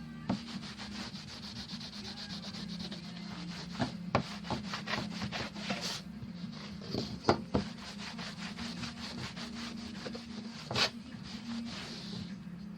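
Irregular scraping and rubbing strokes of hand work, with scattered sharp knocks, over a steady low hum.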